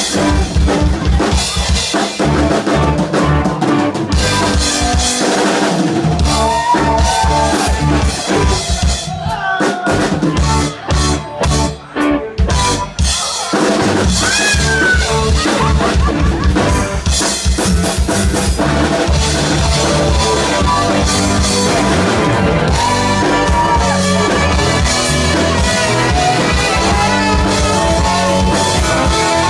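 Live rock band playing with drum kit, electric guitar and saxophone, the drums beating steadily. About ten to thirteen seconds in the band plays a few short stops before going on.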